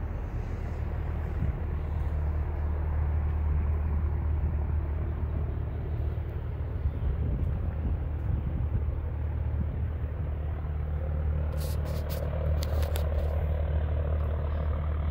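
A steady low rumble, with a few light clicks about three-quarters of the way through.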